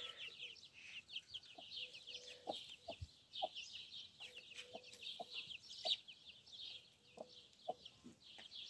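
A broody hen sitting on her eggs, giving soft, short clucks every second or so. Behind them runs a constant high-pitched peeping made of many quick chirps that slide down in pitch.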